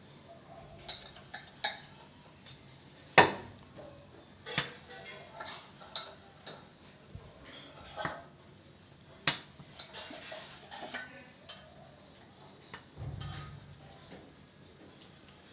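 A wooden cricket bat repeatedly hitting a ball hung on a string: a series of irregular sharp knocks, the loudest about three seconds in.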